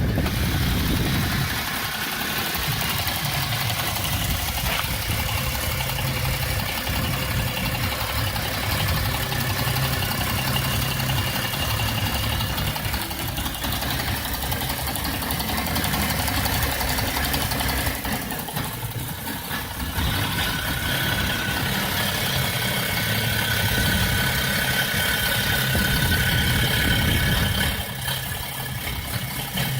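BMW E60 engine idling unevenly, the rough idle that comes and goes at random since its vacuum pump was replaced. The sound shifts a few times, dipping briefly about two-thirds of the way in and again near the end, with a steady higher whine joining from the dip onward.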